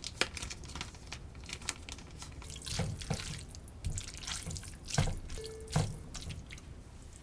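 Water splashing and dripping in a kitchen sink, with scattered clicks and knocks throughout and a few louder knocks about three, five and six seconds in.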